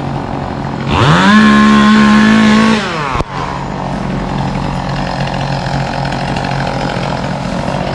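A chainsaw revs up about a second in, holds at full throttle for roughly two seconds, then drops back. A steady engine drone runs underneath.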